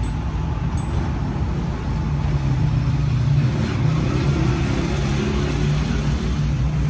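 A steady low motor rumble runs throughout. From about four seconds in, a red-hot steel plier jaw is plunged into a bucket of water and gives a faint quench hiss.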